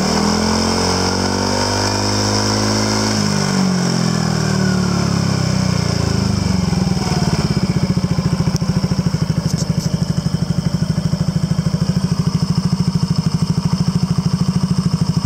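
Yamaha NMAX 125's single-cylinder four-stroke engine breathing through a WR'S titanium oval full exhaust. It is revved once, the pitch rising and then falling away over the first few seconds, and from about seven seconds in it settles to a steady, evenly pulsing idle.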